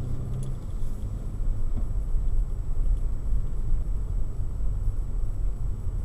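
Car driving along a road, heard from inside the cabin: a steady low rumble of tyre and engine noise.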